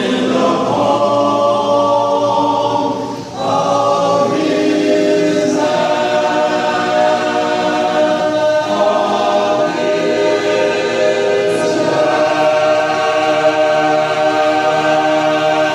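A small group singing a cappella in close barbershop-style harmony, sustaining long chords that change every few seconds, with a short break for breath about three seconds in.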